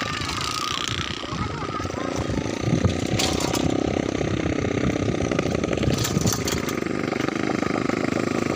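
Small motorcycle engines running as the bikes ride past close by, their pitch rising and falling.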